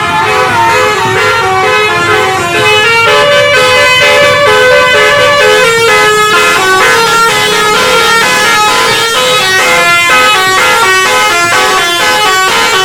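Tourist bus's 'telolet' (basuri) musical horn playing a tune: a long run of stepped horn notes, several pitches sounding together.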